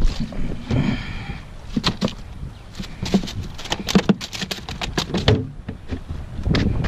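A series of irregular sharp knocks and taps. About a second in there is a short, high squeak.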